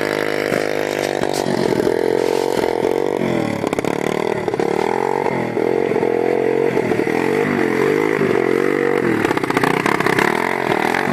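Small single-cylinder engine of a 110cc quad bike revving up and down over and over, about once a second.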